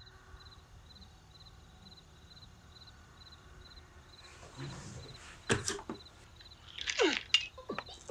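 Faint cricket chirping, a short chirp repeating about twice a second. About halfway in, bedding rustles as a person stirs in bed, with sharper, louder rustles near the end.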